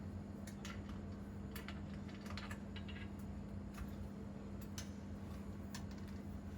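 Scattered light clicks and taps of hand tools and metal parts as a bottle rinser's clamp mechanism is taken apart, over a steady low hum.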